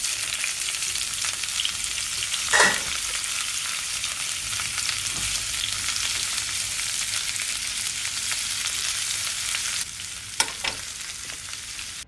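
Food sizzling as it fries in a small frying pan, a steady hiss that drops quieter about ten seconds in, with a short utensil knock early on and another near the end.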